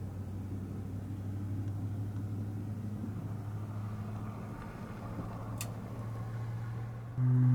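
Steady low mechanical hum, like a vehicle engine running, with a single sharp tick about five and a half seconds in. Near the end a loud sustained low musical tone cuts in.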